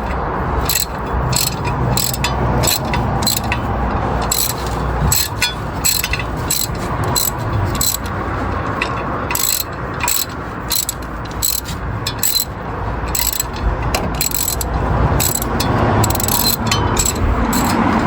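Ratchet wrench clicking steadily, about two clicks a second, as it is worked back and forth to unscrew a spark plug from the truck's V8.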